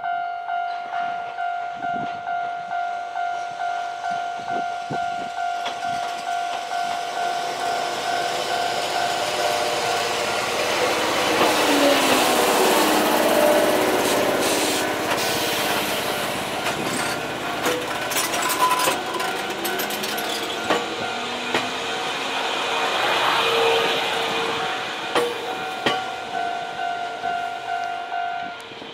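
Jomo Electric Railway 700-series electric train approaching and passing close by, its running noise swelling to its loudest about twelve seconds in, with sharp clacks of the wheels over rail joints as it goes by. Under it a level-crossing warning bell rings steadily about twice a second and stops near the end.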